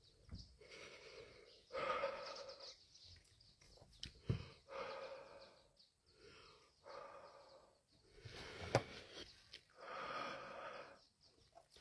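A man breathing out hard through his mouth, about five breathy exhales of roughly a second each with short gaps, blowing against the burn of the Carolina Reaper chillies he has just eaten. A couple of faint clicks fall between them.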